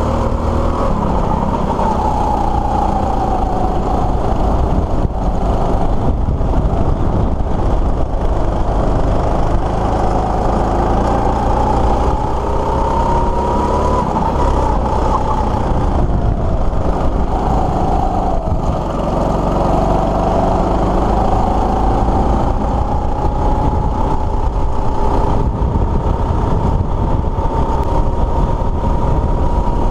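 Go-kart engine running at speed on a lap, heard from the driver's seat. Its pitch falls and climbs again several times as the revs drop and pick back up, over a steady low rumble.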